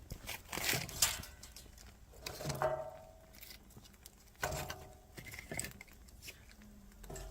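Scattered clicks, scrapes and rustles of things being handled, with two short ringing clinks about two and a half and four and a half seconds in.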